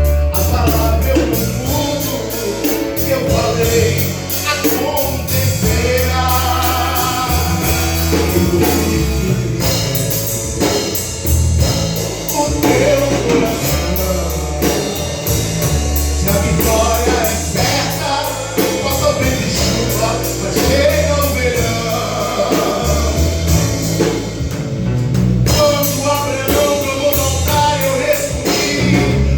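Gospel band playing with singing over bass and a drum kit with a steady beat.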